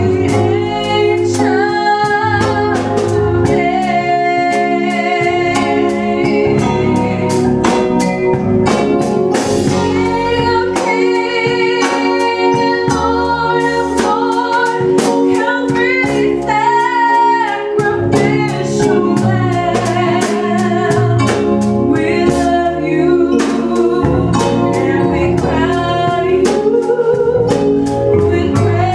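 A woman singing live into a microphone while playing an electronic keyboard, with a drum kit keeping a steady beat.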